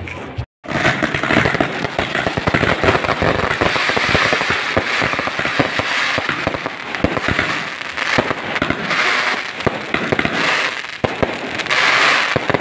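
Fireworks and firecrackers going off in a dense, continuous barrage of rapid cracks and pops, starting after a brief gap about half a second in. Near the end a rushing hiss rises over the crackle.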